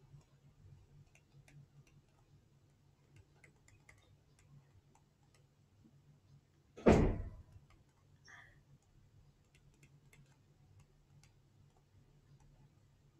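Faint, scattered clicks of a stylus tapping on a tablet screen during handwriting, with one loud thump about seven seconds in.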